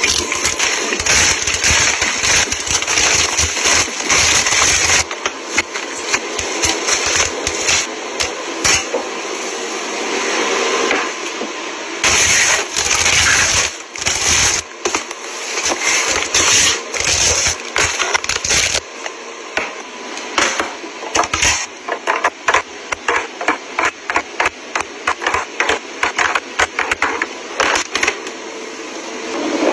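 Groceries being handled and stacked on wire pantry shelves: plastic packaging crinkling and rustling, with bottles and packs knocking and clicking against the shelves. In the last third the clicks and taps come in a quick run.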